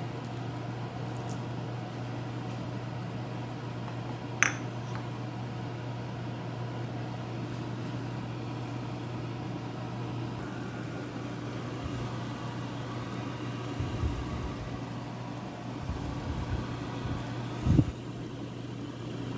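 A pot of water heating on the stove toward a boil, under a steady low hum. A sharp click comes about four seconds in, and a few low knocks near the end.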